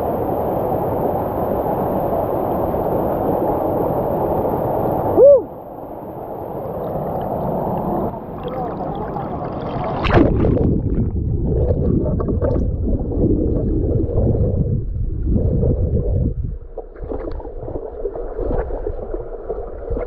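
Fast-flowing spring water churning and gurgling in a small waterfall pool, steady at first and then choppy and splashing from about halfway. A man's loud "Woo!" about five seconds in.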